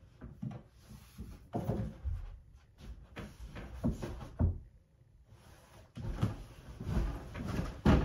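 Irregular thumps and rustling of people crawling and climbing across a bed and its bedding, with a quiet pause of about a second just past the middle and a sharp knock near the end.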